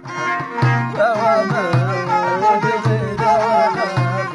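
Middle Atlas Amazigh folk music: a man's singing voice and a bowed violin carry a wavering melody over a large hand frame drum, whose low beats fall steadily about once a second.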